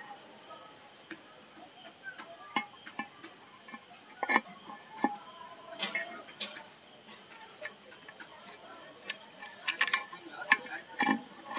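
Scattered light metallic clicks and clinks of a Bajaj Pulsar 150's transmission gears and shafts being handled and seated into the open crankcase, over a steady high-pitched cricket trill.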